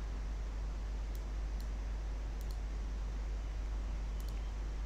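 Faint computer mouse clicks, a few single clicks and a couple of quick double-clicks, over a steady low electrical hum.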